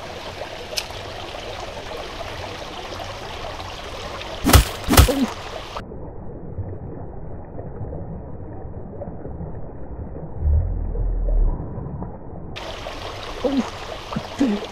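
Water of a small, shallow stream flowing steadily. There are two sharp knocks about four and a half and five seconds in. The sound turns muffled for several seconds in the middle, with a low rumble about ten seconds in.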